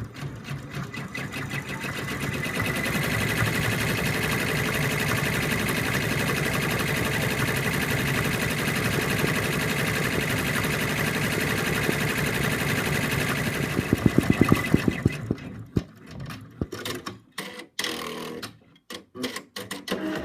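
Embroidery machine stitching out a small star motif, its needle running at a rapid, steady rate after speeding up over the first couple of seconds. It stops about fifteen seconds in, followed by a few scattered clicks and knocks.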